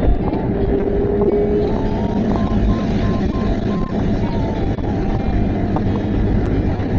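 Subaru Impreza WRX STI's turbocharged flat-four boxer engine running steadily under way, mixed with tyre and wind noise from the moving car.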